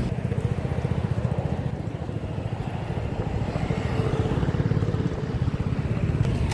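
Small engine running steadily, a fast low throb.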